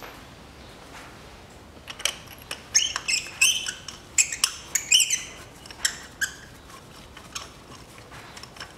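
Gloved hands and a rag rubbing and handling parts around the spark plug wells of a four-cylinder petrol engine: a flurry of short, high squeaks and sharp clicks for a few seconds, thinning out to occasional light clicks.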